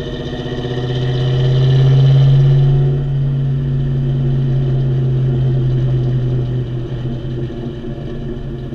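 2000 Ford Mustang GT's 4.6-litre V8 exhaust, through an H-pipe and Flowmaster Super 44 mufflers, heard close to the tailpipes while driving slowly. The low exhaust drone grows louder about a second in, peaks around two seconds, drops back about three seconds in, then holds steady.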